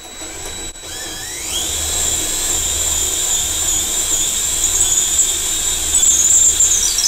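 Power drill boring a 6 mm hole into a timber joist. The motor whine climbs in pitch about a second in as it spins up, then holds steady while the bit cuts the wood, and wavers near the end.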